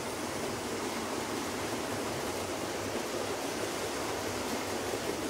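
Several OO gauge model trains running at once: motors whirring and many small metal wheels rolling over the track, heard as a steady, even rushing noise.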